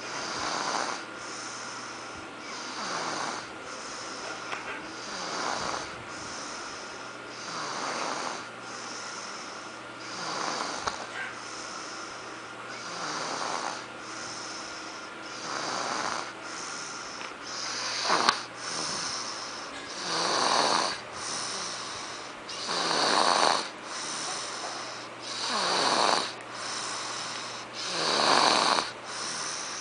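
A 19-month-old toddler snoring in sleep, one snore about every two and a half seconds, getting louder in the second half.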